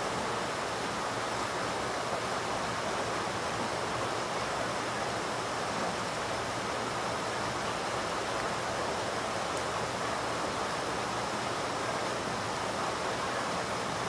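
Small muddy stream running fast over rocks: a steady, even rush of water.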